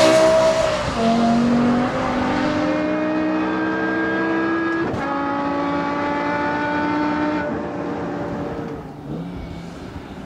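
BMW M6's 5-litre naturally aspirated V10 at high revs, its pitch dropping about a second in as it comes off the throttle. It then holds a steadier mid-rev note that fades over the last few seconds.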